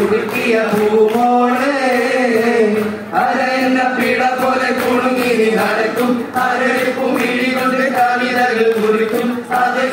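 A group of young men singing a Malayalam Mappila song together, one melody line carried by the whole group with brief breaks for breath.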